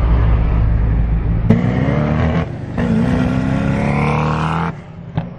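A steady low car-engine drone inside the cabin, then, about one and a half seconds in, the Koenigsegg Agera RS1's twin-turbo V8 accelerating hard. Its pitch rises, breaks off briefly, then rises again for about two seconds before cutting off abruptly.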